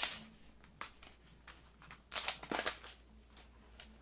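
Surprise-toy packaging being handled and opened: a sharp click at the start, then short bursts of crinkling and rustling, busiest about two seconds in.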